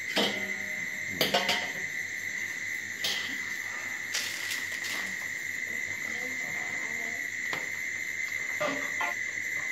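Crickets trilling in one steady high-pitched tone throughout. A couple of brief words are spoken about a second in, with a few faint clinks and rustles.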